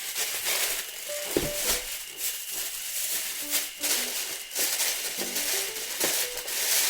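Background music: a short melodic phrase of brief notes repeating every couple of seconds, over a steady shaker-like rattle.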